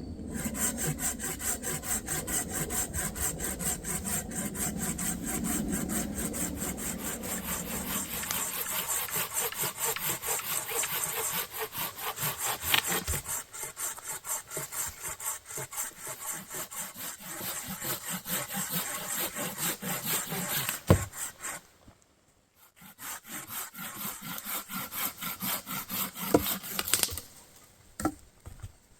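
Hand saw cutting through wood in steady back-and-forth strokes. The sawing stops for about a second around two-thirds of the way in, resumes and then stops. A couple of sharp knocks follow near the end.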